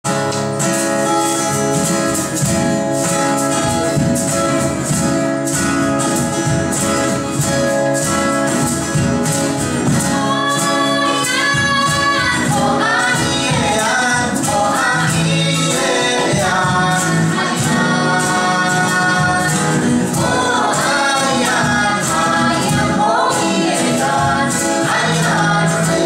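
Live song: an acoustic guitar strummed to a steady beat, joined about ten seconds in by a man and a woman singing together.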